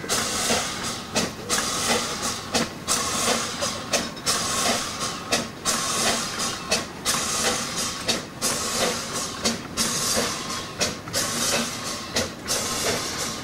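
Narrow-gauge steam locomotive working past with a train of loaded log wagons: steady steam hiss with regular exhaust beats about twice a second, which carry on as the wagons roll by.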